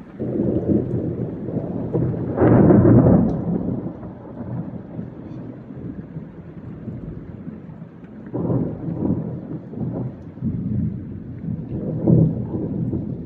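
Thunder rumbling in rolls over steady heavy rain. The loudest roll comes about two and a half seconds in, and further rolls come around eight seconds in and near the end.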